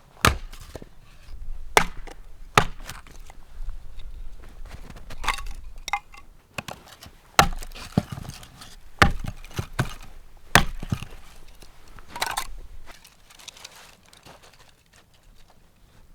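Firewood being chopped: about six sharp blows at irregular intervals, with softer knocks and scrapes of wood between them.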